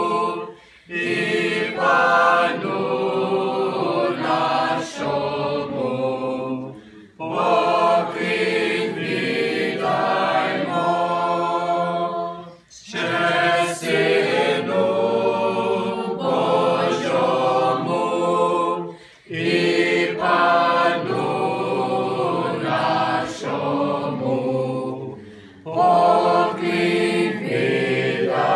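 Mixed choir of children, teenagers and adults singing a Ukrainian Christmas carol, in phrases broken by short breath pauses about every six seconds.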